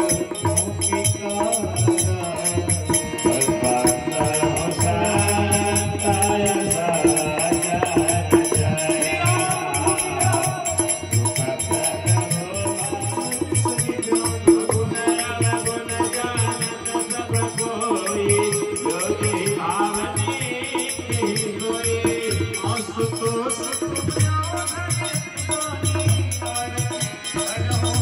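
Devotional folk music: a harmonium melody over hand-played dholak drumming, with a shaken, jingling rattle-like percussion running through it.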